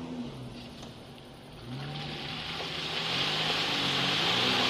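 Hyundai Galloper SUV's engine revving up and down as it drives through a muddy rut. From about two seconds in, its tyres churn and splash through mud and water with a rising hiss, louder as it comes closer.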